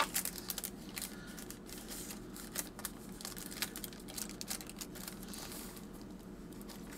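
Paper rustling and crinkling: a paper tag slid into a glassine envelope and journal pages handled, a steady run of short, quick crackles.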